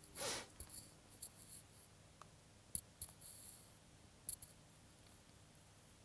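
Faint scattered sharp clicks and brief high-pitched rustles close to the microphone, with a short rush of noise near the start and single clicks at about three and four seconds in.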